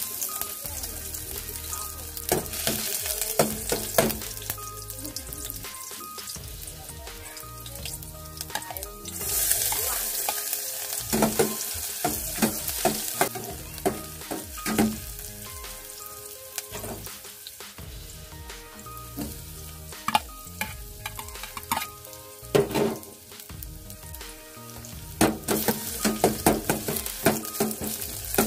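Chopped garlic, ginger and chili sizzling in hot oil in a stainless steel pot, with a spatula stirring and scraping against the pot. The sizzle grows louder about nine seconds in and again near the end, when sliced onion goes in.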